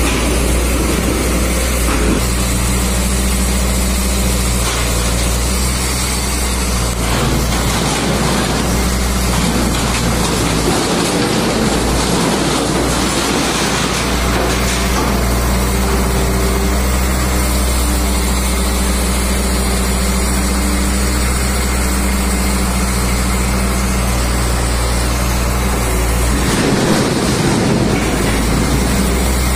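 Heavy truck's diesel engine running steadily to power a hydraulic crane grab, with scrap sheet metal clattering and scraping as it is picked up, noisiest in the middle and again near the end.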